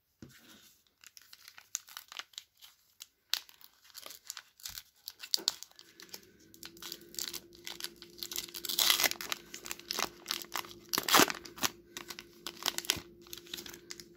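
Plastic wrapper of a 2021 Bowman trading-card pack being crinkled and torn open by hand. The crackling is sparse at first and gets denser and louder about halfway through, with a faint steady hum underneath.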